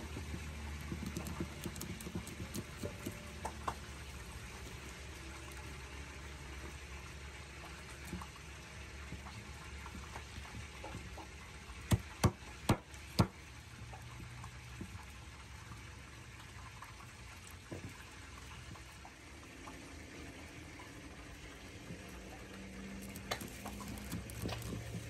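Large kitchen knife filleting a trout on a wooden cutting board: soft cutting and scraping with small clicks, and four sharp knocks of the blade on the board about halfway through, over a steady background hiss.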